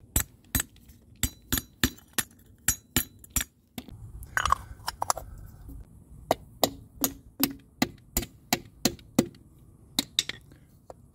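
Chrome lug nut covers being tapped down onto a truck wheel's lug nuts: a long run of light, sharp metallic taps, about two to three a second, with a short pause about four seconds in.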